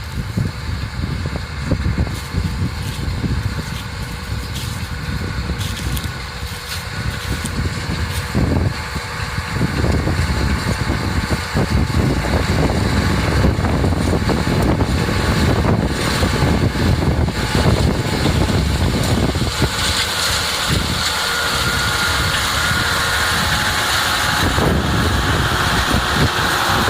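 Tractor and Barigelli two-row beet harvester running: steady engine and machinery noise that gets louder about ten seconds in and turns harsher and hissier from about twenty seconds.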